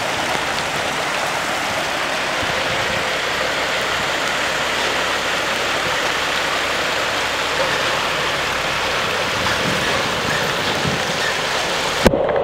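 Muddy floodwater rushing and churning across a flooded street, mixed with falling rain, as a steady loud wash of water noise. It ends with a sharp click as the sound cuts off near the end.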